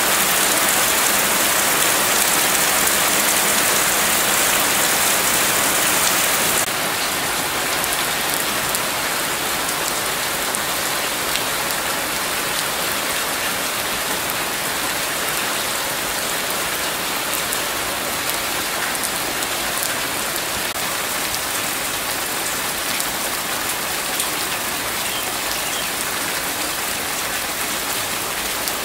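Heavy rain falling steadily. About seven seconds in the sound changes abruptly to slightly quieter rain, with single drops heard hitting concrete steps.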